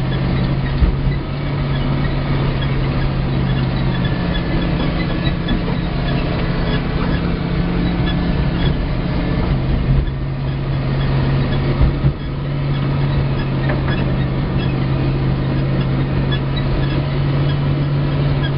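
1971 Chevy C-60 grain truck's carbureted gasoline engine running steadily as the truck drives across a rough field, heard from inside the cab. A few brief knocks come through, about a second in and again around ten and twelve seconds in.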